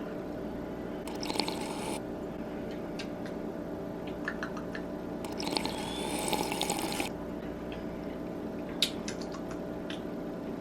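Coffee poured from a French press in two short spells, about a second in and again around the middle. The second pour rises in pitch as the vessel fills, over a steady low hum.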